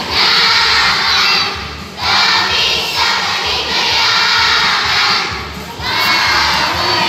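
A large children's choir singing loudly together, in three phrases with short breaks between them.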